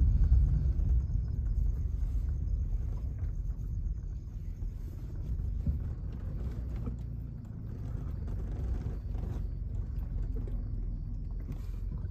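Car rolling slowly over a rough dirt track, heard from inside the cabin: a steady low rumble from engine and tyres, with scattered light knocks and rattles from the body.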